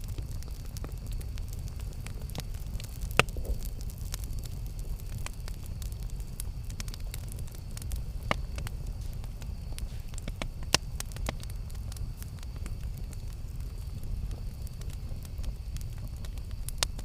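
Campfire burning: a steady low rumble of flames with scattered crackles and sharp pops from the wood, the loudest pop about three seconds in.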